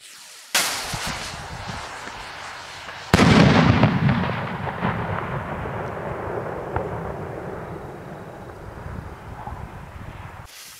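A 2-inch salute rocket launches with a sudden whoosh about half a second in, its motor noise fading as it climbs, then bursts with a single loud bang about three seconds in. A long rolling echo follows and slowly dies away.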